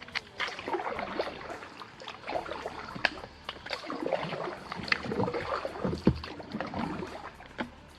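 Paddle strokes in the water beside a kayak: irregular small splashes, drips and light knocks throughout.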